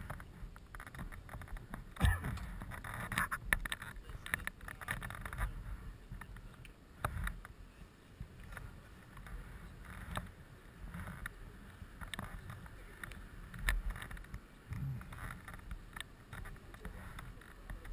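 Handling noise from a body-worn camera: riding gloves and jacket rustling and brushing against it, with scattered knocks and clicks, the loudest about two seconds in, over a low rumble.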